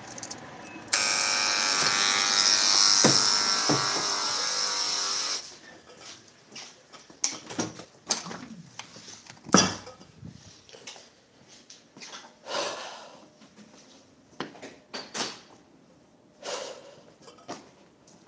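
Electric door-release buzzer at a building entrance buzzing steadily for about four seconds, starting about a second in. After it come scattered knocks and rustles.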